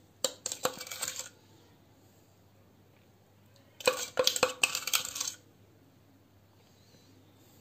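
Two short runs of quick clinks and taps against a glass dessert cup. The first comes just after the start and the second around the middle, each lasting about a second.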